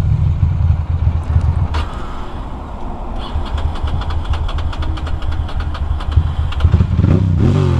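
2006 Ducati Monster 620's air-cooled L-twin, stalled in traffic and slow to restart. The engine sound dies down about two seconds in. The starter then cranks with a rapid ticking for about three seconds before the engine catches and runs again near the end.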